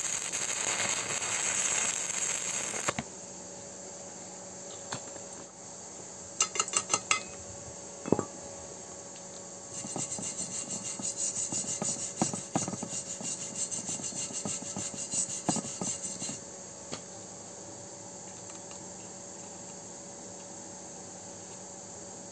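Stick-welding arc crackling on thin square steel tube, stopping sharply about three seconds in. A few seconds later come a quick run of sharp taps and a knock, then a steel wire brush scrubs the weld in fast back-and-forth strokes for about six seconds.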